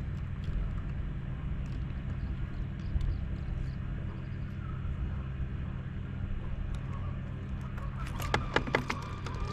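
Boat motor running steadily with a low, even hum. A quick run of sharp clicks and taps comes about eight seconds in.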